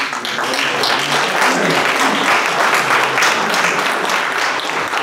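Room full of people applauding, breaking out suddenly and holding steady before easing slightly near the end.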